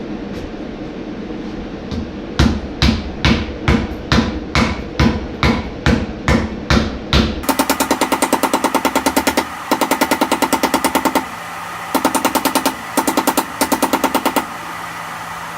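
Steel being hammered: about a dozen ringing blows a little over two a second, then several fast runs of ringing blows about seven a second with short pauses between them, over a steady hum.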